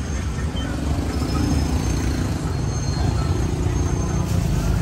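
Steady low rumble of motor traffic.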